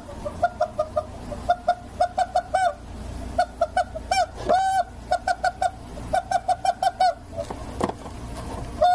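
Rubber chicken toy squeaking over and over, short squawks in quick runs of several a second, with a few longer, bending squawks about halfway through and a brief pause near the end.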